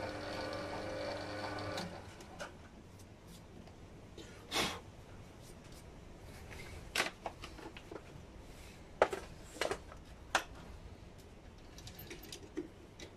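A small metal lathe's motor running with a steady hum, cutting off about two seconds in. Then scattered sharp metallic clicks and knocks of tools and the chuck being handled.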